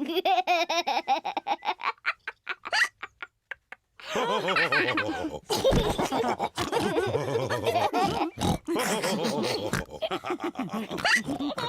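Cartoon pigs laughing, with snorting oinks. The laughter breaks off in a short near-silent gap about three seconds in, then comes back as a longer stretch from several voices at once.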